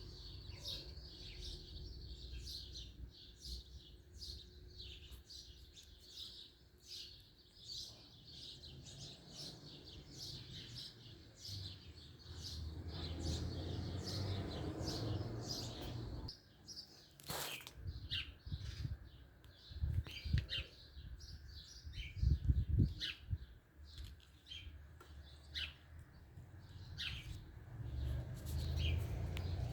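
Birds chirping, with many short high chirps following one another. A low rumble rises under them in the middle stretch and again near the end.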